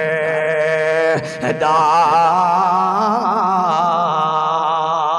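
A man sings a Punjabi naat (devotional verse in praise of the Prophet) into a microphone, drawing out long held notes with a wavering vibrato. He holds one note for about a second, breaks off briefly, then sustains a long note on the word "da".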